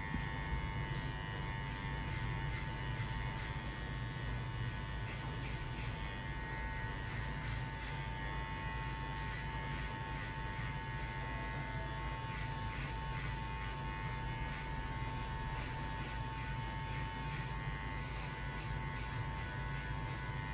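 Electric hair clipper buzzing steadily as it cuts hair, with a light crackle from the blades.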